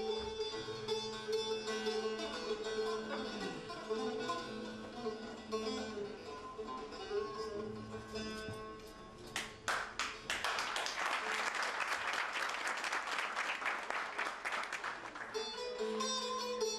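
Long-necked saz (bağlama) played solo, a plucked melody over a steady drone. About nine seconds in the playing stops and an audience applauds for about five seconds. The saz starts again near the end.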